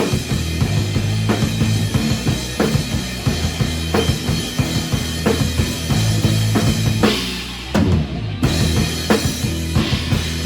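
Band music without singing: a drum kit keeps a steady beat of kick and snare hits over a bass line, with a short break in the beat about eight seconds in.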